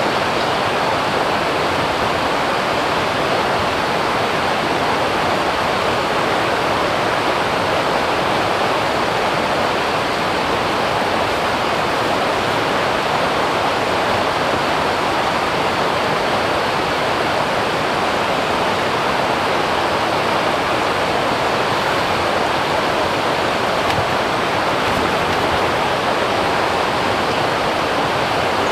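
Stream water rushing steadily over rocks, a constant even rush with no breaks.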